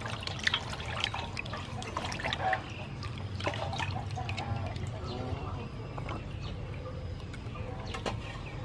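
Hands swishing and lifting whole squid in water in a metal basin: small splashes and drips, busiest in the first few seconds. Chickens cluck faintly in the background.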